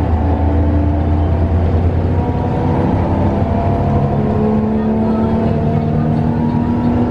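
Front-engined coach's diesel engine running while the bus is under way, a steady drone whose pitch rises slowly over the second half as it gathers speed.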